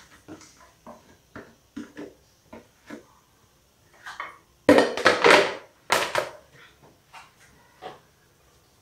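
Hands spreading and patting a loose fish filling in a filo-lined tray, with soft scattered taps and rustles. About halfway through comes a louder, brief bout of rustling and crinkling.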